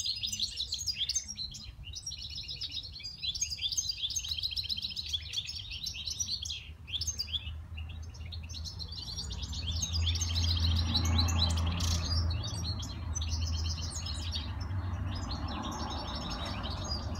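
A caged songbird singing phrase after phrase of fast, high trills, with short gaps between them. A low rumble rises beneath the song from about halfway through.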